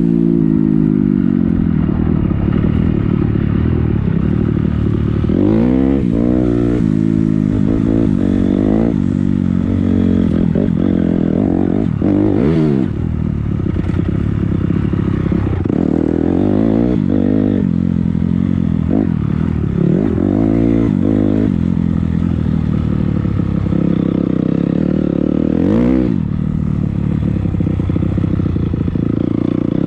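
250cc dirt bike engine running hard off road, its pitch rising and falling again and again as the throttle is opened and shut.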